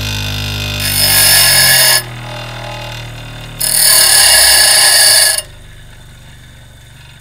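Bench grinder's stone wheel grinding the tip of a twist drill bit into a brad point: two harsh grinding bursts, about a second in and again about four seconds in, as the bit is pressed to the wheel. Under them runs the motor's hum, which sinks in pitch as the wheel slows.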